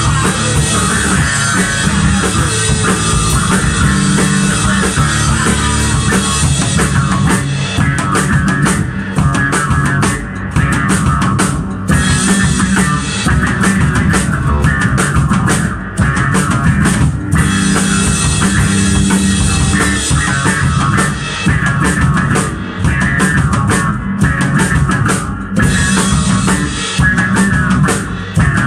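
Electric bass guitar and drum kit playing rock together, a live two-piece band with dense drumming and a few brief breaks in the beat.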